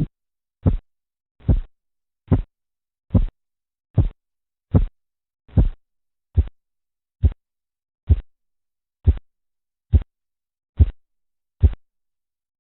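Korotkoff sounds heard through a stethoscope over the brachial artery below a blood-pressure cuff: the pulse beats come about fifteen times, a little over one a second. The early beats are longer and blurred, the later ones shorter and sharper, and the beats stop near the end.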